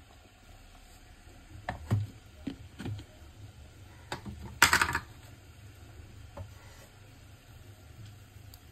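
A few light knocks and clunks of a plastic blender jug being handled, with one short, louder rushing burst about four and a half seconds in. No blender motor is heard running.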